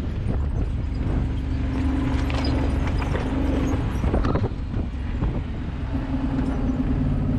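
Side-by-side UTV engine running on a rough climb, its drone swelling and easing, with knocks and rattles from the machine as it rolls over rocks.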